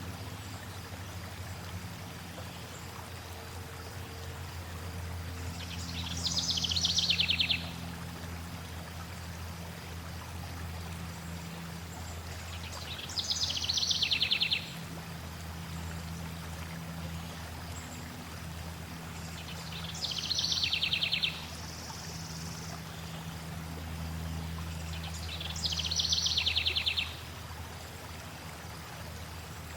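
Steady low rush of flowing water, over which a songbird sings a fast trill that sweeps downward four times, each phrase about a second and a half long and coming every six to seven seconds.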